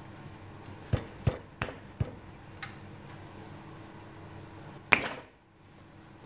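Light clicks and taps of small turned wooden parts being handled and fitted together by hand, five in quick succession, then one sharper knock about five seconds in.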